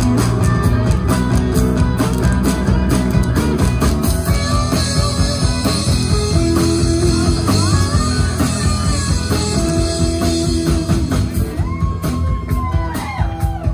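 Live rock band playing: electric guitar lead over bass and drums with a steady beat, the guitar bending notes up and down near the end.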